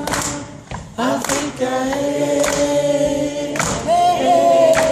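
An audience sings along in chorus, many voices holding long notes together, with a sharp clap about once a second.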